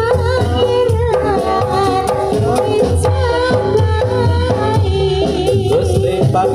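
Javanese kubro siswo folk music played through microphones: a singer with a wavering vibrato over hand-drum strokes and gamelan gongs.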